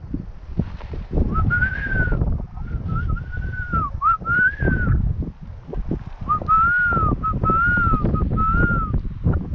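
A person whistling a tune in two phrases of arching notes, over crunching footsteps on loose lava rock and wind buffeting the microphone.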